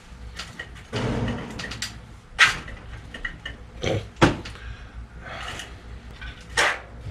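A city bicycle being handled and checked by hand: scattered rattling and clicking, with sharp knocks about two and a half seconds in, twice around four seconds in, and again near the end.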